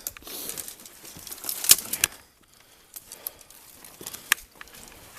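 Footsteps and rustling through undergrowth and rubble: scattered crackles and snaps, busiest at first, with the sharpest snap about two seconds in.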